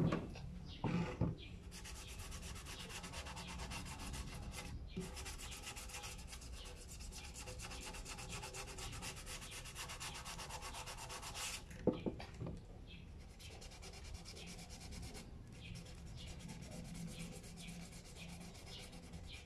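Hand wet-sanding of a polycarbonate headlight lens with sandpaper: quick, steady back-and-forth rubbing strokes that scour off an old coat of varnish. A few knocks come near the start, and there is a short pause with a knock about twelve seconds in.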